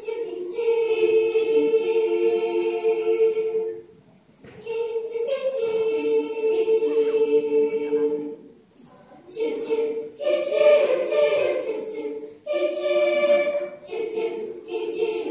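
Children's choir singing held notes in harmony, in phrases separated by short breaks.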